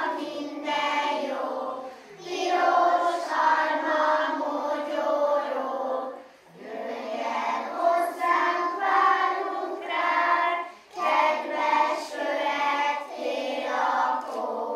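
A group of young kindergarten children singing a song together, in phrases with short breaks for breath between them.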